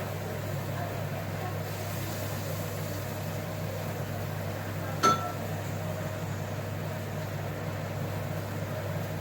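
Steady low electrical hum of a running appliance, with a single sharp clink about five seconds in.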